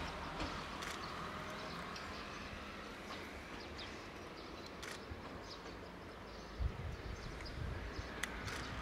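Steady hiss of steam venting from a standing C12 steam tank locomotive, with scattered small clicks and wind buffeting the microphone a few times in the second half.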